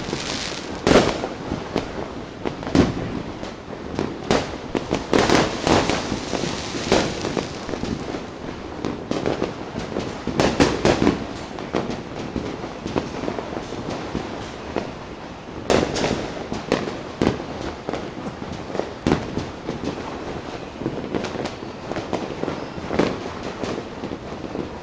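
Many fireworks going off at once: an irregular string of bangs and crackles, with louder blasts every few seconds standing out from fainter ones.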